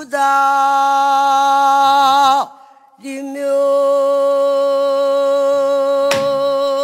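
Female pansori singer holding two long, wavering sung notes on the words '두다리며', with a short break between them. About six seconds in, the accompanying drummer strikes the buk barrel drum once.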